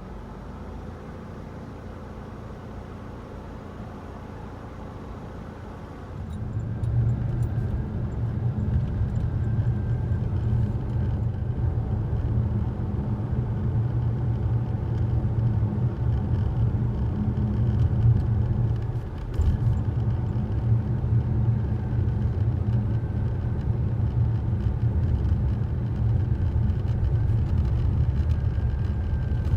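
Cabin noise of a Mitsubishi Delica D:5 clean diesel on the move: a steady low rumble that grows much louder about six seconds in and then holds.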